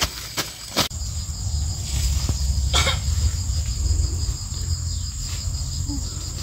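Insects droning steadily at a high pitch. A few sharp clicks or snaps come in the first second and once more in the middle, over a low rumble.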